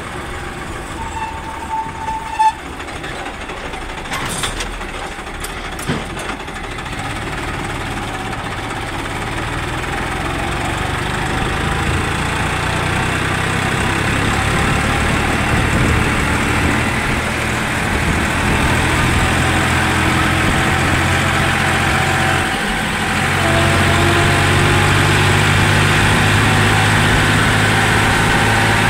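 Farmtrac 60 tractor's three-cylinder diesel engine running while driving on the road, growing steadily louder as it pulls; it dips briefly about twenty-three seconds in, then comes back louder. A few sharp knocks sound in the first six seconds as an oncoming truck passes.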